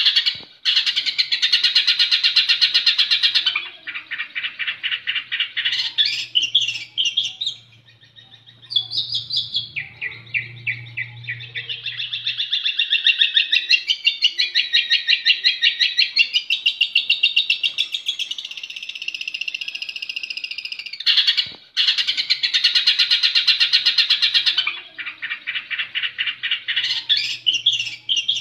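Long-tailed shrike (cendet) singing a loud, harsh, rapid trilled chatter in long phrases broken by short pauses.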